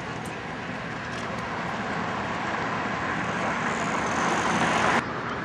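A car driving toward and past on a paved street, its tyre and engine noise swelling steadily louder with city traffic behind, then cutting off suddenly about five seconds in.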